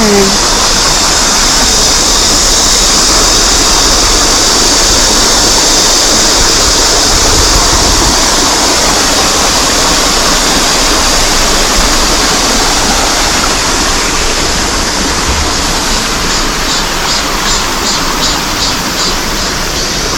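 A small stream flowing steadily: a loud, even wash of running water.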